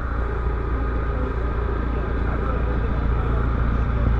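Several railway motorcars' small engines idling together, a steady low rumble, with faint voices in the background.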